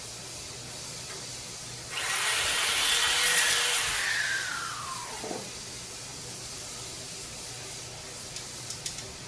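A handheld electric power tool runs for about two seconds and then winds down after it is released, its pitch falling steadily as the motor coasts to a stop. A few small clicks follow near the end.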